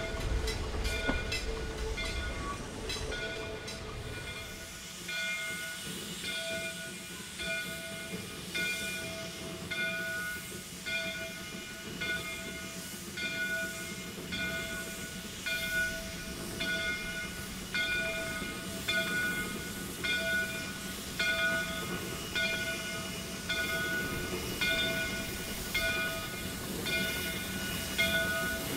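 Shay geared steam locomotive No. 5 working with steam hissing from its open cylinder cocks. Its bell rings steadily, a little faster than once a second. A few sharp rail clicks come in the first seconds.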